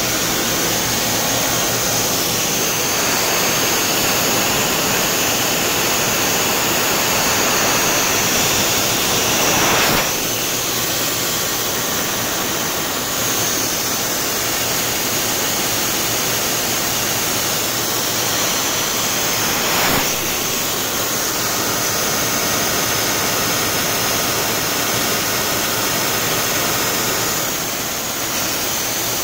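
Horizontal milling machine running and cutting into a Tesla battery module, a loud steady noise. It changes in character sharply about ten seconds in and again about twenty seconds in.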